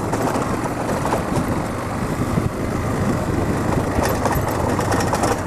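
Motorcycle running at low speed over a rough, stony dirt road, heard from the rider's seat: a steady engine and tyre rumble, with small clicks and rattles coming in from about four seconds in.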